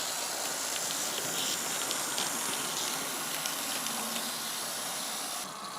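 Steady steam hiss from an H0 model steam locomotive's DCC sound decoder as the engine sets off with a heavy train. A few faint ticks sit under the hiss, and the hiss cuts off abruptly near the end.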